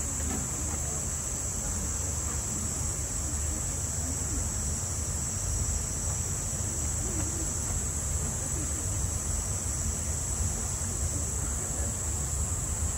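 Steady, unbroken high-pitched buzzing of a cicada chorus, over a low steady background rumble.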